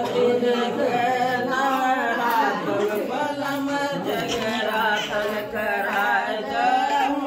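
Several women singing a Hindu devotional song together, unaccompanied, in long held notes.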